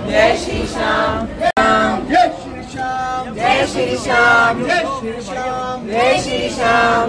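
Men's and women's voices singing a melody together, with long held notes that bend in pitch. The sound cuts out for an instant about a second and a half in.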